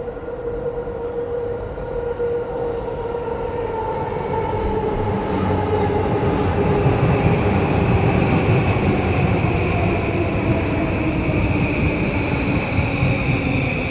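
Electric commuter train pulling into the platform, its motors whining in several tones that slowly fall in pitch as it brakes, over rumbling wheels that grow louder to a peak about halfway through.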